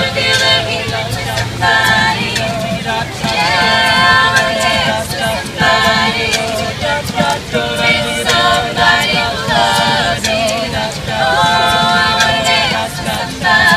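A mixed a cappella group of men and women singing a song together in harmony, voices only with no instruments, in long held phrases.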